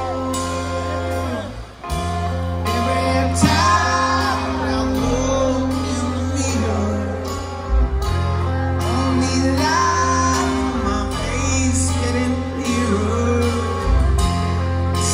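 Live band playing: a male lead singer over electric guitar, keyboards and a steady bass line, recorded from within the crowd. The sound dips briefly about two seconds in.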